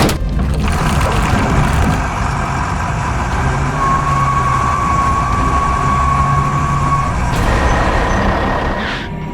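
Heavy vehicle engine running steadily, a cartoon sound effect, with a thin steady whine from about four to seven seconds in.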